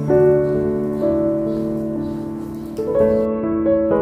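Background piano music with slow, sustained notes.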